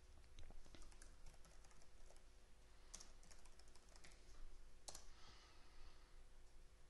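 Faint computer keyboard typing: scattered light key clicks, with a couple of sharper clicks about three and five seconds in.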